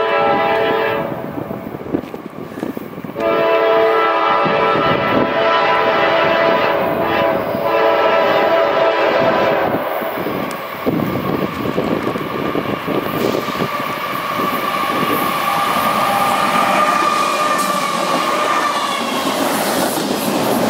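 Diesel locomotive's multi-chime air horn sounding for a grade crossing: one blast ending about a second in, then a long blast from about 3 to 10 seconds in. After it, double-stack intermodal cars roll past close by, their wheels clacking over the rail joints with a wavering squeal.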